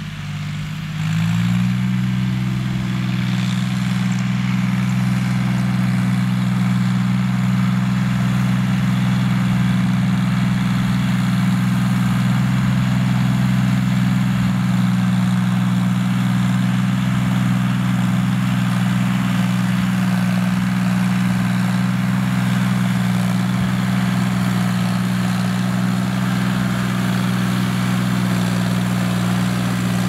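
John Deere tractor's diesel engine running steadily under load while tilling. The engine note rises about a second in, then holds an even pitch.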